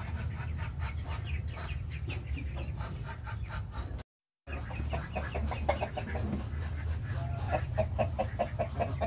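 Chickens clucking in short, quickly repeated calls that grow louder and come at about four or five a second in the second half, over a steady low rumble. The sound cuts out completely for a moment about four seconds in.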